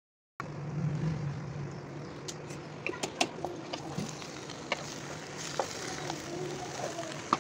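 A spatula stirring macaroni and grated cheese in a nonstick pan, clicking and scraping against the pan at irregular moments over a steady low hum. The sound cuts in abruptly about half a second in.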